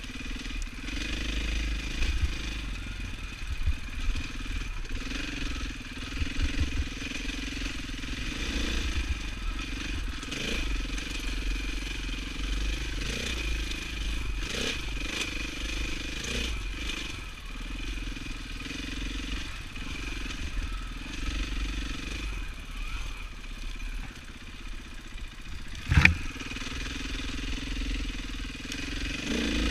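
Dirt bike engine running as it is ridden along a wooded trail, its pitch rising and falling with the throttle. One sharp knock about 26 seconds in.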